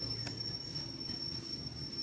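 Insects droning in the surrounding forest: one steady, high-pitched whine held throughout, over a low rumble, with a faint click about a quarter second in.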